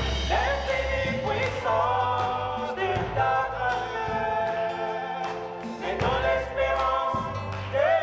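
Gospel song performed live: a woman and a man singing into microphones, with voices joining together, over electric guitar, bass and drums.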